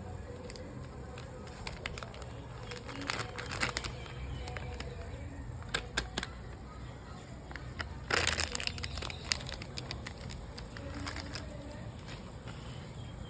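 Plastic packets of herbal powder crinkling and rustling as they are handled, in a few short bursts, the loudest a little past the middle.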